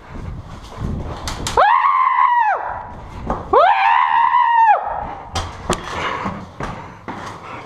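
A person screaming twice, two long high-pitched cries each about a second long, with sharp clicks and knocks around them.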